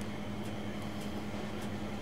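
A steady low machine hum over a noisy background, with a few faint ticks.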